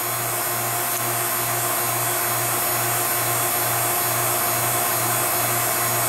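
HVAC vacuum pump running steadily, with a faint regular pulsing in its low hum. It is pulling a deep vacuum through a flexible refrigerant hose, and the vacuum has levelled off at about 143 microns and is dropping no further.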